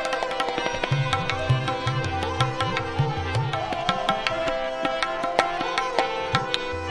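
Hindustani classical accompaniment in Raag Bilawal with no singing: tabla playing a steady rhythm over a held drone, with low bending strokes of the bass drum. A wavering melodic line enters about two seconds in.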